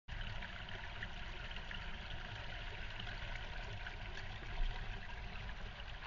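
Small rocky creek trickling and splashing over stones, a steady flow of water.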